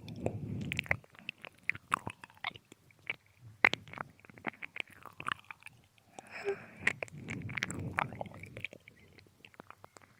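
Close binaural ear-licking: wet tongue and lip clicks and smacks, with a soft breathy exhale at the start and again in the middle.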